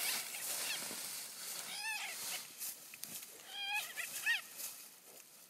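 A treeing walker hound fighting a raccoon in dry leaves: rustling and crunching of leaves, with short high-pitched arching animal cries about two seconds in and again around three and a half to four seconds in.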